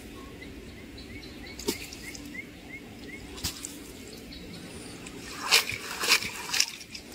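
Cast net being hauled in from the water: a few light splashes, then a cluster of louder splashes and pouring water as the wet net is lifted out near the end.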